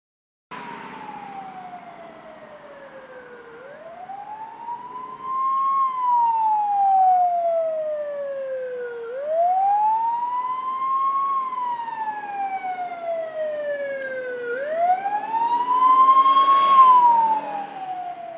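Ambulance siren in wail mode: one tone rising quickly and then falling slowly, repeating about every five and a half seconds, heard from inside a car. It grows louder about five seconds in and is loudest near the end as the ambulance approaches.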